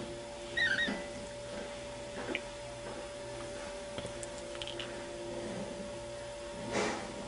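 A kitten gives a tiny, high squeak about a second in, the sort a kitten makes while yawning, over a steady electrical hum. A short soft puff of noise comes near the end.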